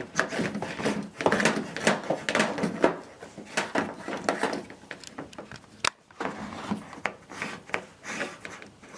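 Power cord of a Danby DDW1801MWP portable dishwasher being pushed back into its storage compartment: irregular rubbing, scraping and plastic clicks and knocks.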